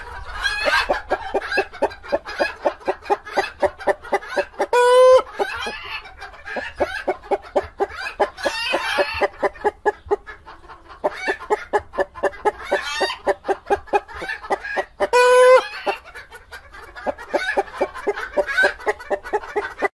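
Chicken clucking in a rapid run of short clucks, twice breaking into a long, loud squawk.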